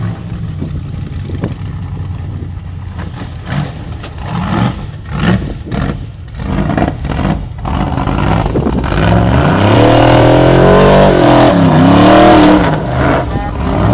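Formula offroad buggy's engine revving hard on a steep sand hill climb: short uneven blips of throttle at first, then from about the middle held at high revs, louder, its pitch swinging up and down as the wheels spin in loose sand.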